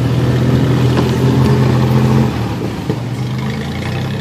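Off-road 4x4's engine running steadily as it drives through mud, its note easing off a little past two seconds in and picking up again near the end.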